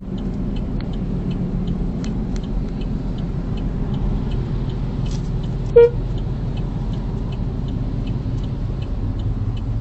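Steady low rumble of engine and road noise heard from inside a moving car, with faint high ticks about three a second. About six seconds in comes a single short car horn toot, the loudest sound.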